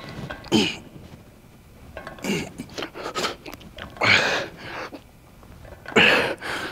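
A man breathing out hard in short, breathy grunts, about one every two seconds, as he strains through the reps of a weightlifting set.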